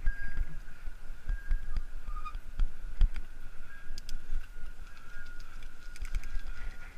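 Giant Escape 2 hybrid bicycle being ridden on a paved path: uneven low rumble and thumps as the frame and camera mount jolt over the surface, with scattered sharp clicks and rattles and a faint steady high whine in the background.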